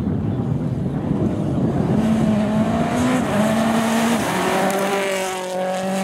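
Mini John Cooper Works WRC rally car's turbocharged four-cylinder engine at full throttle, passing close on a loose gravel road, with the rush of tyres and gravel under it. The engine note breaks briefly about three and four seconds in, and its pitch drops as the car goes by.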